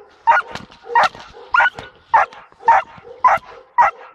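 Belgian Malinois barking at a decoy in a bite suit during protection training: a steady run of sharp barks, about two a second.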